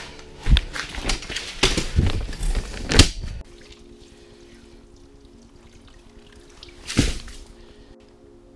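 Water splashing and pouring in a quick run of irregular knocks and drips for about three seconds, with one more splash about seven seconds in. Soft ambient music with held notes runs underneath from about three and a half seconds on.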